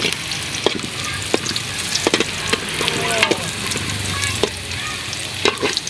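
Ginger and fried catfish pieces sizzling in a metal pot as they are sautéed, with a metal ladle stirring and clinking against the pot's side about once a second.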